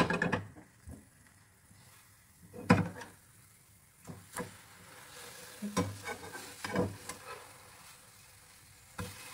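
Mini pancakes sizzling as they caramelize in honey in a frying pan, with a spatula knocking and scraping against the pan as they are turned. The loudest knock comes right at the start, another about three seconds in, and a few lighter ones follow.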